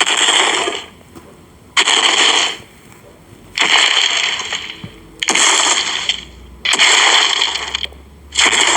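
Dinosaur footstep sound effect: six heavy steps at a steady pace, about one every two seconds. Each is a loud, hissing burst of noise that starts sharply and fades over most of a second.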